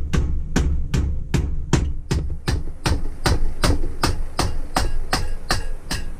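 Rubber mallet tapping repeatedly on a Holley List 1848 four-barrel carburettor's body, a steady run of sharp knocks about two and a half a second, some fifteen in all.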